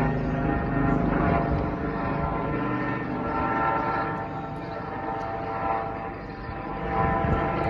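Eurocopter EC135 twin-turbine police helicopter flying overhead: a steady rotor and turbine drone with a whine of many even tones, loudest in the first second or two and easing off after.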